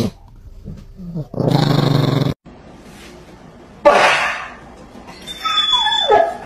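A prank fart noise, a loud low buzz lasting about a second, with a small chihuahua growling faintly before it. After that comes a sudden loud shout just before the middle and a cry that falls in pitch near the end.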